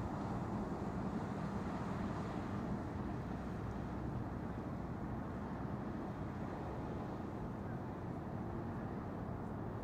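Steady low rumble of a departing ferry's engines, with a faint constant hum.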